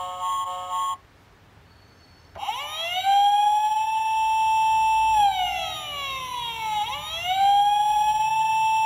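Sound Crown toy police car's electronic sound unit: a repeating electronic tone pattern stops about a second in. After a short pause, a wailing police siren starts, rising, holding, falling and rising again.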